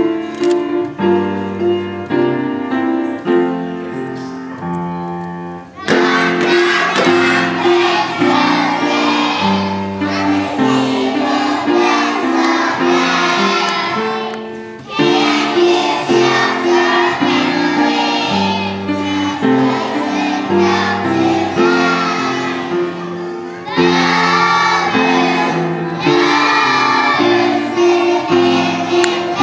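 A piano playing alone for about six seconds, then a group of preschool children singing together with the piano accompaniment, pausing briefly twice between lines.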